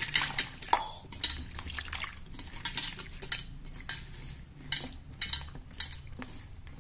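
Strawberries being swished and rubbed by hand in water in a stainless steel bowl: irregular splashing and sloshing, with small knocks of fruit and fingers against the steel.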